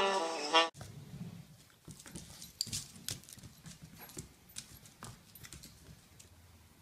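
A puppy's claws and paws tapping and skittering on a hardwood floor as it pounces on and bats a small toy: light, irregular clicks. Before that, the last moment of brassy saxophone-like music cuts off in the first second.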